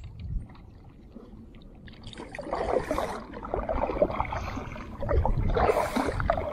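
Kayak paddle strokes: the blades dipping and pulling through the water with splashing and dripping, starting about two seconds in.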